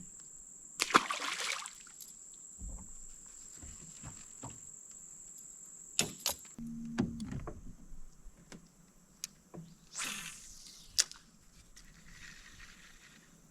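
Scattered knocks and clicks in a small fishing boat, with two brief water splashes, about a second in and again about ten seconds in, under a steady high-pitched insect trill.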